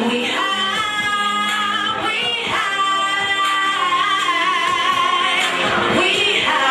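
A woman singing with music, holding long notes that bend and glide in pitch.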